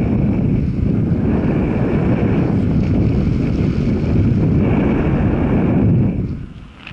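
Heavy wind buffeting on the microphone, a dense, steady rumble that drops away sharply for about a second near the end.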